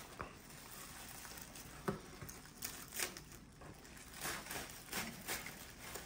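Scissors snipping through plastic bubble-wrap packaging, the plastic crinkling and rustling. The sound comes as a few short, separate cuts and crinkles, irregularly spaced.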